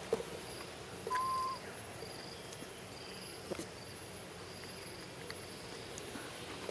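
Faint forest ambience: a high insect chirp repeating roughly once a second, with one short, steady whistle-like call about a second in and a few faint clicks.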